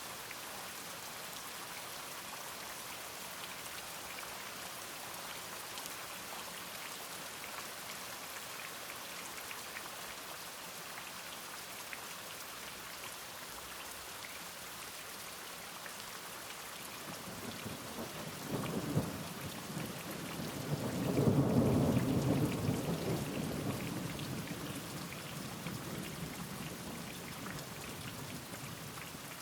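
Steady rain falling, with a roll of thunder that builds from about two-thirds of the way in, cracks once, peaks loudly and rumbles away near the end.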